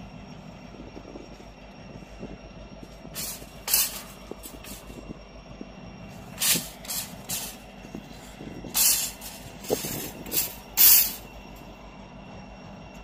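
Metal shopping cart rolling and rattling over the concrete of a skatepark, with several short, sharp scraping hisses.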